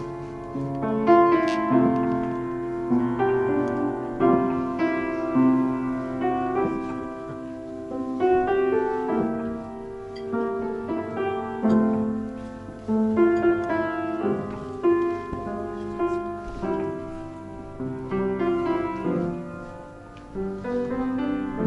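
Upright piano played solo: a melody over chords, with notes struck and left to ring.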